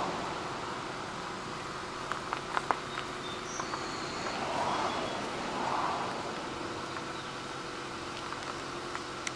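Steady outdoor background noise, a hiss and hum, with a few soft clicks about two to three seconds in and two brief swells of louder noise near the middle.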